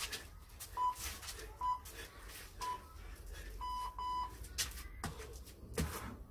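Electronic round timer beeping: three short beeps about a second apart, then two longer beeps in quick succession, the signal that a boxing round is changing. Soft thuds of footwork on patio tiles come in between and after.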